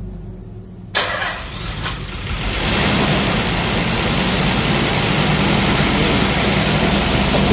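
Nissan 300ZX VG30DETT twin-turbo V6 turning over on the starter and catching with a sudden burst about a second in, then building to a steady run within a couple of seconds. This is the engine's first start after a full rebuild with new gaskets, reconditioned heads and replacement turbos.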